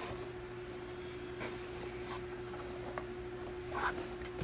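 Faint handling of a cardboard box, a few light rubs and taps, over a steady background hum.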